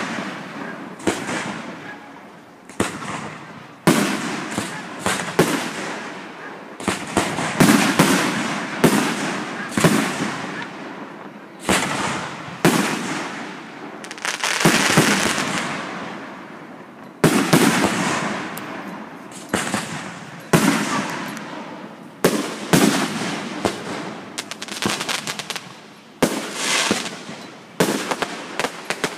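Aerial fireworks shells bursting in quick succession: a sharp bang about every second, each fading off in an echoing rumble.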